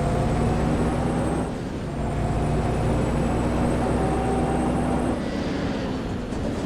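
Coach bus diesel engine running steadily, with a thin high whine over it. The sound dips briefly about a second and a half in and eases off after about five seconds.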